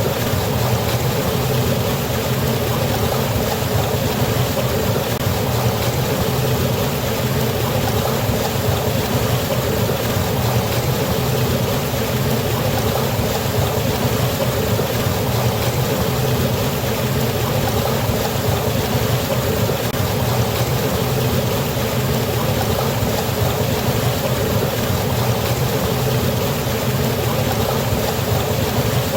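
Steady rush of falling river water: an even, unbroken noise with no changes.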